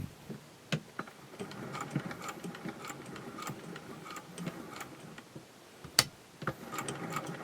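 A Singer 201K cast-iron sewing machine being worked: a few sharp clicks, with a few seconds of soft, ticking mechanical running in the middle as fabric is fed through the seam-joining attachment.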